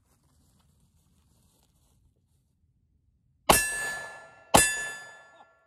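Two 9mm pistol shots from a Glock 19X, about a second apart. Each is followed by the clear, slowly fading ring of a steel plate target being hit.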